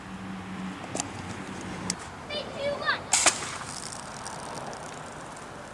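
Plastic-bottle rocket released from its launch pipe about three seconds in: a sudden loud burst of rushing air that trails off over a second or two. Two sharp clicks and a short gliding voice-like call come just before it, and a low steady hum stops about two seconds in.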